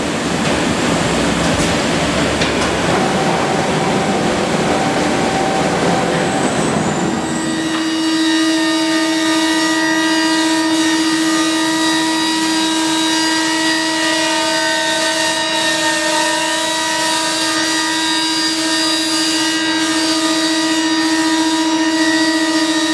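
A CNC woodworking machining centre running as it machines wooden stair treads. For the first several seconds it gives a rushing noise, then from about seven seconds in a steady whine with several overtones.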